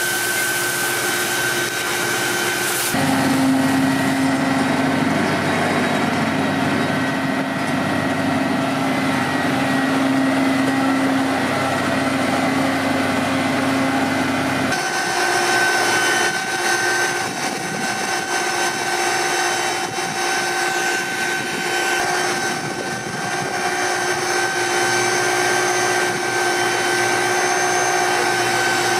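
Fire engine's engine and water pump running at a steady drone with a few steady tones, and water hissing from a hose line. The sound changes abruptly twice, about three seconds in and about halfway through.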